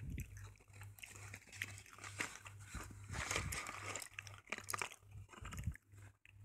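Cardboard box of slate pencils being handled and tipped, rustling and scraping, with light clicks as the pencils slide out onto a stone floor.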